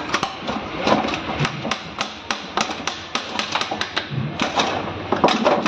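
Hand tools tapping and prying on a Renault Triber gearbox casing to split its two halves: a rapid, irregular run of sharp metal clicks and knocks, a few each second.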